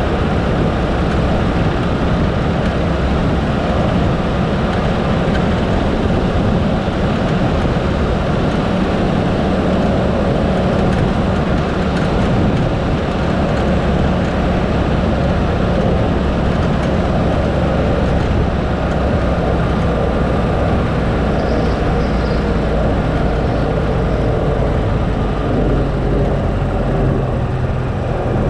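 Steady road and engine noise from a vehicle driving along a road, a continuous rumble with a faint engine note underneath.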